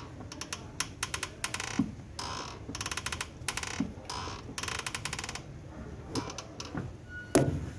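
VW Voyage clutch pedal and clutch actuator creaking in short bursts of rapid clicks, about seven times, as the pedal is worked, with a louder knock near the end. The noise comes from the actuator, which has dried out inside with age and is damaged; it also makes the clutch pedal hard.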